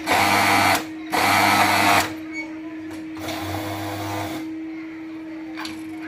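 JACK overlock (serger) sewing machine stitching fabric in short runs: two loud bursts of under a second each, then a softer run about three seconds in, over a steady hum.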